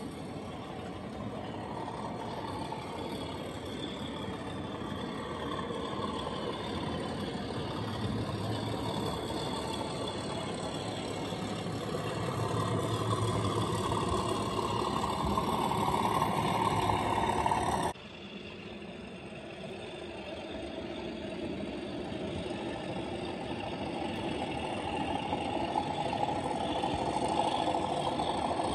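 DCC sound of an OO-gauge model Class 37 diesel locomotive's English Electric engine running, mixed with the rumble of model coal hopper wagons rolling along the track. The sound grows louder, drops suddenly at a cut about two-thirds of the way through, then builds again.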